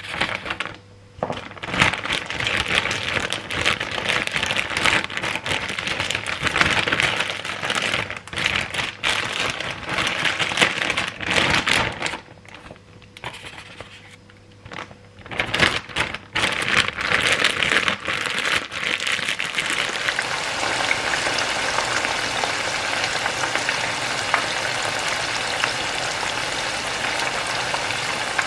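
Chicken pieces for karaage deep-frying in hot oil: a crackling sizzle that breaks off and starts again several times, then runs steadily for the last third.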